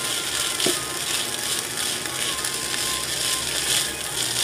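Cooked rice and scrambled egg frying in a nonstick pan: a steady sizzle with the scraping of a slotted spatula stirring and tossing the rice, and a few light knocks of the spatula against the pan.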